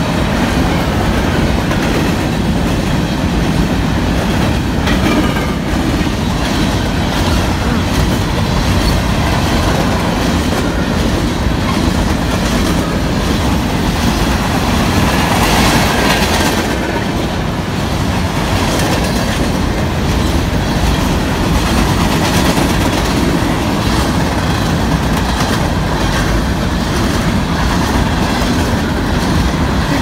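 Freight train of covered grain hopper cars rolling past close by: a loud, steady rumble of steel wheels on the rails.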